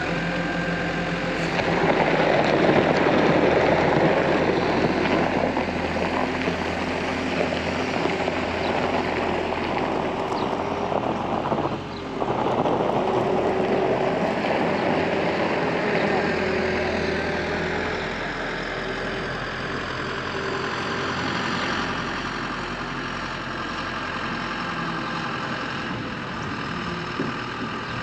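Farm tractor engine running steadily, with a brief dip in level and pitch about twelve seconds in.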